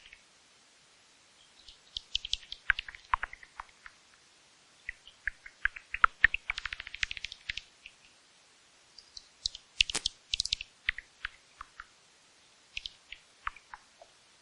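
Bat chittering: four bouts of rapid, short high-pitched squeaks and clicks, a second or two of quiet between them, the third bout, about ten seconds in, the loudest.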